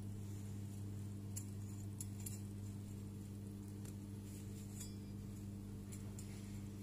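A metal spatula clinking lightly against a plate as it lifts and folds a thin pancake: several small, separate clicks over a steady low hum.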